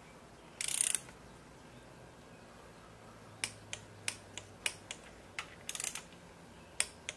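Click-type torque wrench ratcheting on a connecting rod cap bolt in one short burst near the start, then a string of single sharp clicks through the second half. The bolts are being brought to stage one torque on a Ford 4.0 OHV short block.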